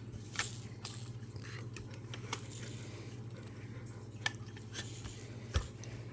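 Scattered small clicks and brief rustles of plastic fidget-cube pieces being handled and fitted onto the cube, over a low steady hum.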